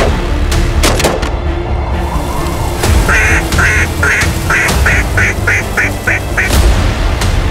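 A hand-blown duck call sounding a hen mallard's quack in a falling cadence: about ten quacks over three and a half seconds, each shorter and quicker than the one before. It plays over background music, with a few sharp thumps in the first second or so.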